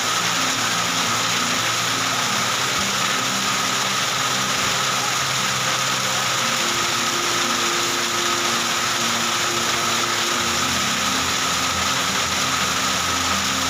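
Heavy rain mixed with hailstones pelting the ground: a steady, dense hiss.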